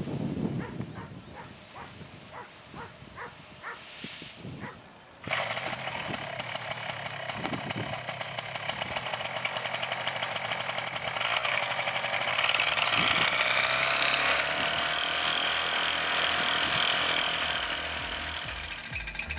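Miniplane TOP80 paramotor's small single-cylinder two-stroke engine cuts in about five seconds in and runs with a fast, even buzz, rising in pitch as it is revved up, then easing off near the end. Before it, wind noise with a run of soft ticks.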